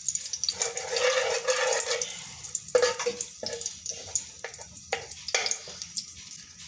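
A steel spoon stirring and scraping melting ghee around a stainless steel pot, with several sharp knocks of the spoon against the metal around the middle.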